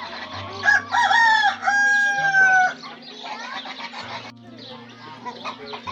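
A rooster crowing once: a few short notes and then a long held note that falls slightly, over many small birds chirping.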